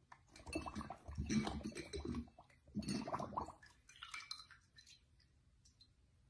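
Labrador puppy lapping and slurping water from a ceramic bowl, in two busy spells with a short break, then a few fainter laps.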